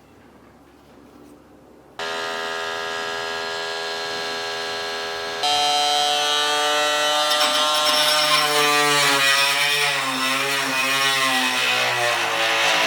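INGCO cordless oscillating multi-tool with a wood-cutting blade switched on: a steady buzzing whine that starts suddenly about two seconds in, then steps up louder and higher a few seconds later as the speed is raised. For the last few seconds its pitch wavers up and down.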